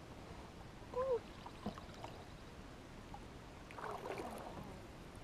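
Quiet water around the kayaks, with faint trickling and dripping. A short, faint pitched call comes about a second in, a light click follows soon after, and a soft splash-like rustle comes around four seconds in.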